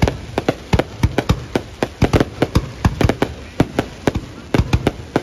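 Fireworks display bursting in a rapid, irregular barrage of sharp bangs, several a second.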